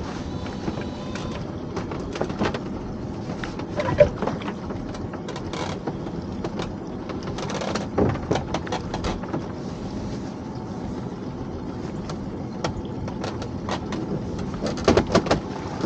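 A small fishing boat's engine running steadily while a heavy crab pot is hauled up on its line over the side. Scattered knocks and clicks come from the rope and hauling gear, busiest through the middle and again near the end.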